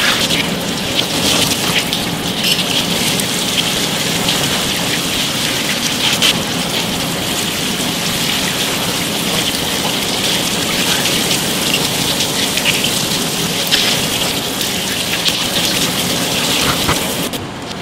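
Water from a hose spraying and splashing over skewered eel fillets on a wooden board while a gloved hand rubs them clean: a steady, loud hiss and patter of running water. It stops abruptly near the end.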